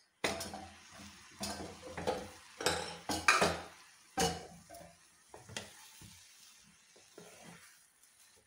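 Wooden spatula stirring and scraping thick rava upma in a non-stick pan, with some sizzling from the hot pan. The strokes come loud and irregular for the first four seconds or so, then turn fainter and sparser.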